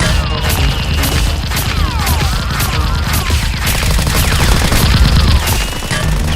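Rapid volleys of gunfire-style shots with short falling whistles, over a steady bass-heavy music track.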